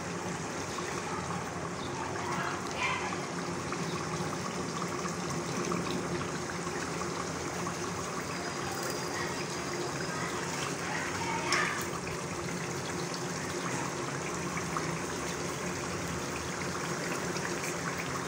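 Steady simmering and bubbling of food cooking on the stove, with one brief clink about eleven and a half seconds in.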